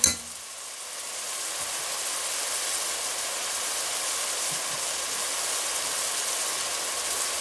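Chopped onions sizzling in hot olive oil and ghee in a steel pot: a steady frying hiss that builds over the first couple of seconds and then holds. There is a short click at the very start.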